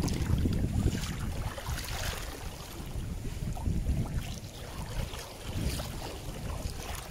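Wind buffeting the microphone in uneven gusts, over shallow river water flowing and lapping.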